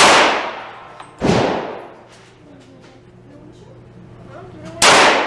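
Three gunshots at a shooting range, one at the start, one about a second later and one near the end, each with an echoing tail.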